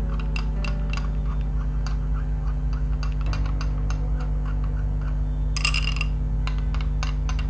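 Metal spoon clinking and scraping against a small glass bowl while stirring a thick curd-and-oil mixture: quick, uneven clinks several times a second, with a louder cluster near the end. A steady low hum runs underneath.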